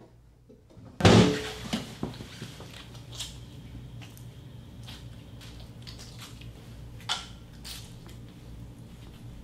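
A desk drawer and a hand-sanitizer bottle being handled: a loud knock about a second in, then a few small clicks and soft rubbing as hands are rubbed together with sanitizer, over a steady low hum.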